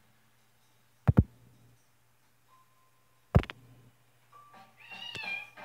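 Two loud, sharp thumps, the first a quick double about a second in, the second about three and a half seconds in. Near the end, faint wavering high tones from the television begin.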